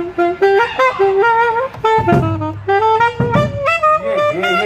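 A lone wind instrument playing a fast bebop line, quick notes stepping up and down, with a couple of low thumps underneath.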